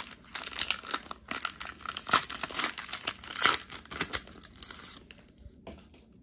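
Foil booster-pack wrapper of Pokémon trading cards being torn open and crinkled by hand, in a run of irregular crackles and rips that dies away about five seconds in.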